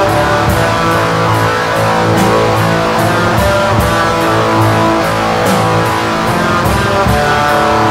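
Black metal recording: electric guitars and bass playing held chords, over a steady drum beat of about two to three hits a second.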